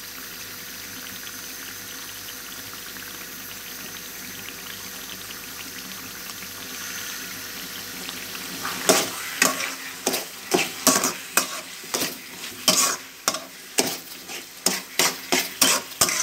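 Semolina and raisins sizzling in hot ghee and melted sugar in a metal karahi. A little over halfway through, a metal slotted spoon starts scraping and knocking against the pan in quick strokes, about two a second, as the halwa is stirred.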